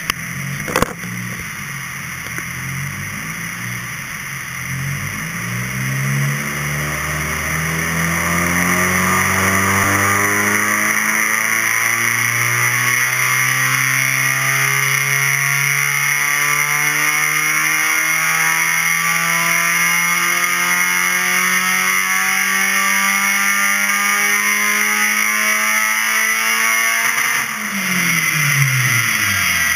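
Car engine under load on a chassis dynamometer during a power run: the engine note climbs steadily through the revs for about 25 seconds, then the throttle closes and the revs fall away quickly near the end. A sharp click sounds about a second in.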